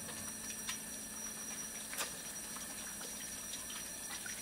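Faint steady hiss with scattered light crackles and ticks, one a little sharper about two seconds in: a cast iron pan heating on the stove, nice and hot before the patties go in.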